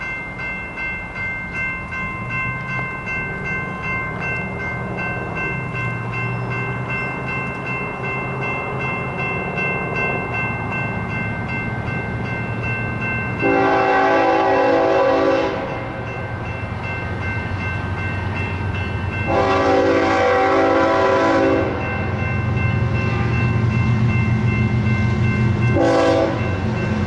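Diesel locomotives of a BNSF intermodal train approaching, their low engine rumble growing louder, over a steady ringing that pulses about twice a second, typical of a grade-crossing bell. The lead locomotive's horn sounds two long blasts and then a short one, the start of the standard grade-crossing signal.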